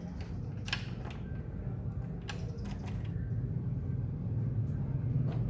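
Metal key clicking in a door's cylinder lock as it is turned back into line and pulled out of a lock where the key tends to stick. There are several sharp clicks in the first three seconds or so, over a steady low hum.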